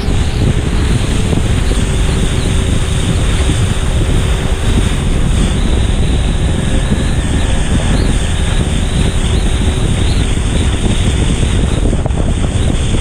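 Steady loud rush of wind on the microphone and water churning in the boat's wake under a wakeboard, with the tow boat's engine running underneath.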